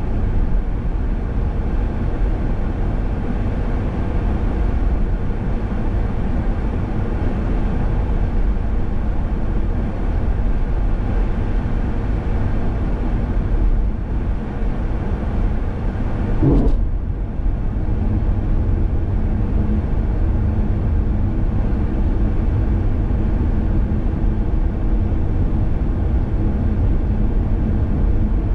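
Steady road noise from a car being driven, mostly low in pitch, with one brief tone that rises and falls a little over halfway through.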